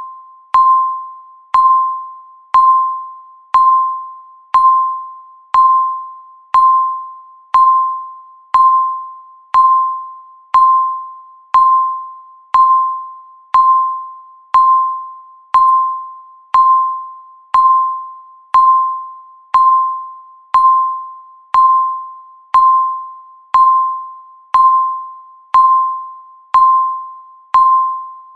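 Countdown timer beep sounding once every second: a single mid-pitched electronic tone that starts sharply and fades away before the next, identical each time.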